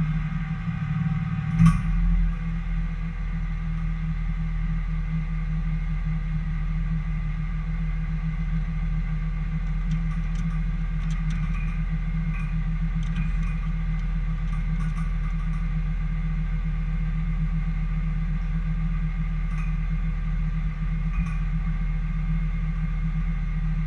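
Steady low hum of a car driving, heard from inside the cabin, with a sharp click near the start and a few faint ticks later on.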